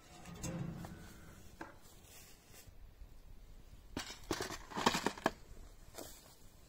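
Firewood logs handled by hand: a rough scraping as a log is pulled from a wood stack, then a run of wooden knocks and clatter as logs are set down between concrete blocks.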